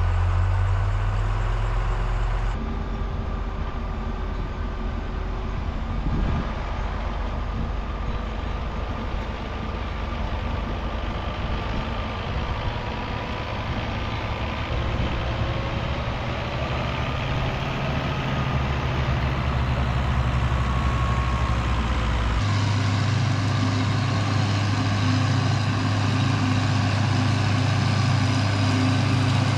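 Heavy farm machinery engines running steadily, their pitch drifting a little in the middle, with the engine sound changing abruptly twice, as if switching to another machine.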